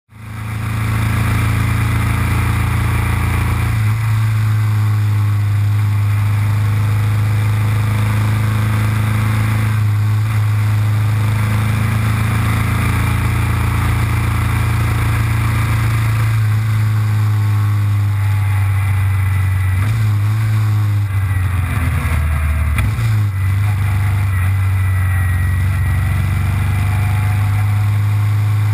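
Motorcycle engine heard from on board, running steadily at road speed with wind noise over the microphone. The engine note changes pitch several times, most unsteadily a little past twenty seconds in.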